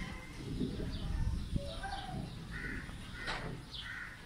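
Birds calling: a string of short high chirps, with a few harsher, lower calls, over a steady low rumble.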